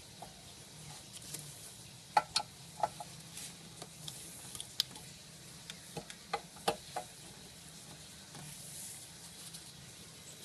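Scattered light clicks, taps and scrapes of a screwdriver and fingers on the screws and small metal housing of a Subaru EA82 cold start air bypass valve, as the housing screws are worked loose. The clicks cluster from about two to seven seconds in.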